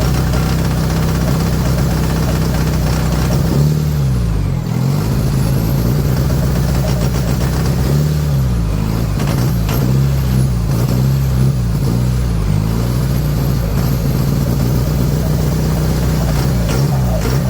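Jeep Wrangler JK's common-rail diesel engine running steadily, its pitch sweeping down and back up several times as with revving and gear changes on the move; it runs smoothly after repair of its injectors and fuel line.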